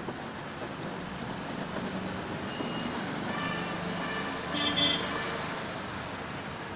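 Steady road traffic noise, with a short pitched double toot, likely a vehicle horn, about four and a half seconds in.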